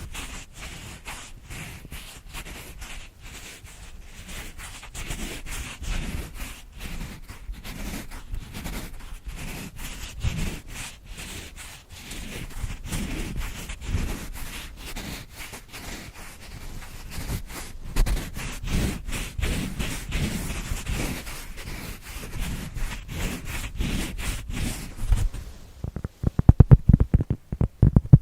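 Rapid, irregular tapping and scratching on a pad, close to the microphone. About three seconds before the end the crisp scratchy sound gives way to louder, deeper, quick taps.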